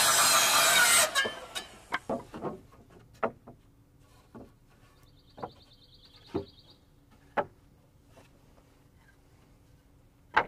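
Handheld circular saw, bevel set to 45°, cutting a plumb cut through rafter lumber, which stops about a second in. Then a series of wooden knocks and clacks as the cut boards are picked up and set down, with one sharp knock near the end.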